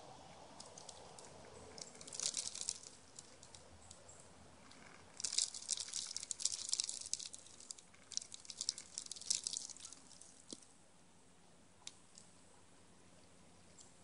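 Eastern gray squirrel crunching bird seed close by: bursts of crisp, crackling clicks. There is a short burst about two seconds in and a longer run from about five to nine and a half seconds, then a few lone ticks.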